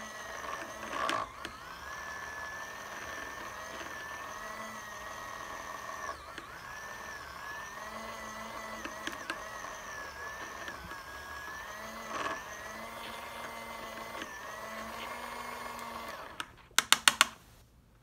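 Small battery-powered motor of a mini beauty sponge washing machine running with a steady whine, spinning soapy water around a makeup brush held in the drum; the pitch dips briefly now and then. The motor stops about sixteen seconds in, followed by a few quick sharp clicks.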